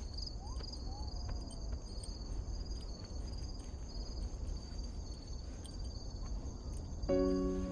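Steady high chirring of insects, like crickets, pulsing in two high bands. Soft music with held notes comes in near the end.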